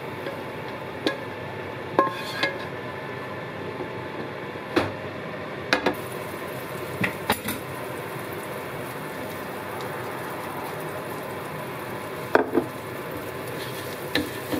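Wooden spatula knocking and scraping against a nonstick frying pan: a few sharp clacks spread over several seconds, above a low, steady sizzle of fat in the hot pan.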